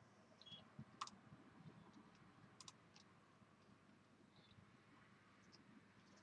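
Near silence with a few faint computer mouse clicks, one about a second in and a quick pair a little later.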